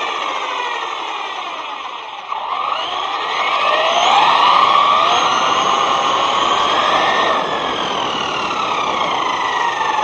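Brushless electric motor of a ZD Racing Pirates 2 RC truck whining, its pitch climbing and falling over and over as the throttle is worked through the turns. It drops away briefly about two seconds in, then snaps back up to its loudest climb about four seconds in.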